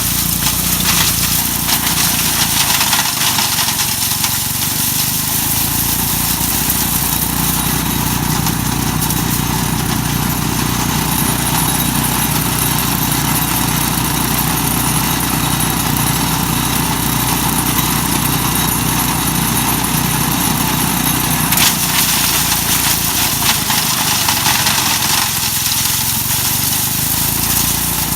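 Mighty Mac wood chipper running steadily under its small gasoline engine, with a continuous grinding hiss over the engine hum.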